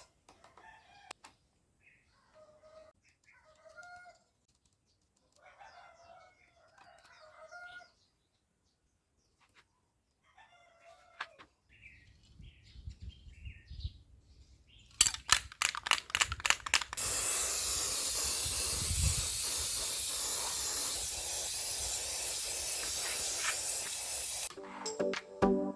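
Faint chicken calls, then a run of clicks and a loud steady rushing noise from the homemade 12 V motor fan's PVC-pipe blades spinning up and blowing air, which stops abruptly near the end.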